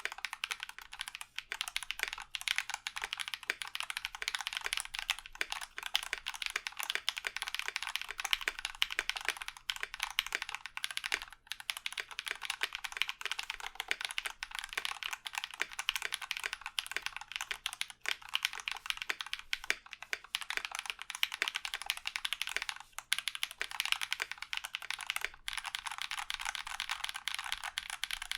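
Steady fast typing on a Key65 mechanical keyboard with lubed Holy Panda tactile switches and Aether PBT keycaps: a dense run of keystroke clicks, broken by a few brief pauses.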